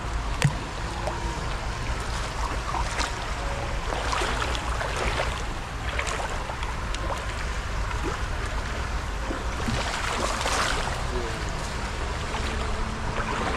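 Shallow rocky stream running, with irregular splashes of water as a long-handled hand net is swept and scooped through it. A single sharp knock about half a second in.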